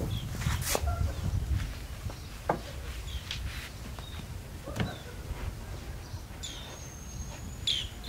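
Outdoor background with a low steady rumble, three light knocks, and birds chirping, one holding a thin whistled note for about a second near the end.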